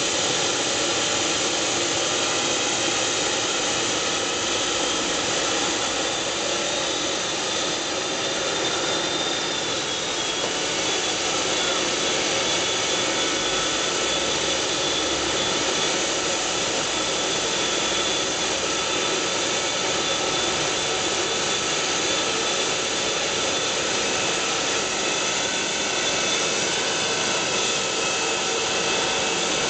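MD902 Explorer NOTAR helicopter running on the ground before takeoff, its twin turboshaft engines and turning main rotor making a steady turbine whine over a constant rush of air.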